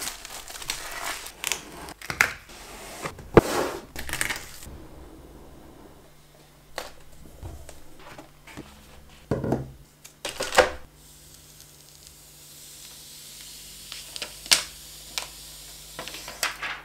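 Unboxing handling noises: plastic wrap and a shipping mailer rustling and tearing, then a cardboard box opened and a pen display tablet lifted out. Scattered sharp knocks and taps run through it, the loudest about three seconds in and again near the end.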